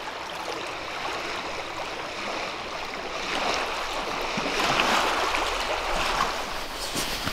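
Small waves from the loch lapping and washing on a shingle shore, swelling a little about halfway through.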